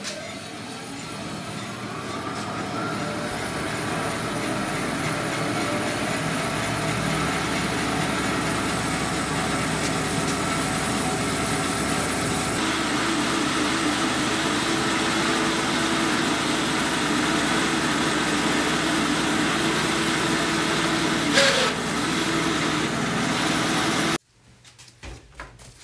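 A vehicle driving: engine and road noise rising as it picks up speed over the first few seconds, then running steadily. A single sharp knock comes near the end, and the sound cuts off abruptly.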